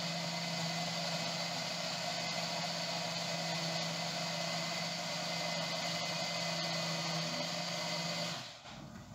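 Electric mini chopper (blender) motor running steadily with a constant hum, its blade whipping frozen banana pieces and a little milk into a creamy purée; the motor cuts off near the end.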